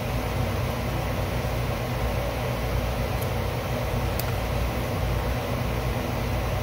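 Steady low mechanical hum with hiss, even in level throughout, with a faint tick about four seconds in.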